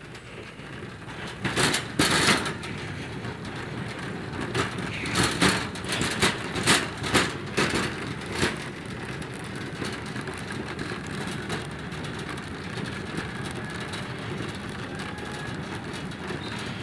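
Shopping cart rolling across a hard store floor: a steady rumble from the wheels, with a run of sharp clatters and knocks in the first half.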